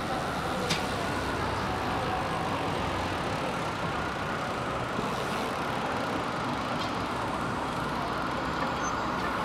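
Steady city street traffic heard from a moving bicycle, with a distant siren wailing slowly up and down over it.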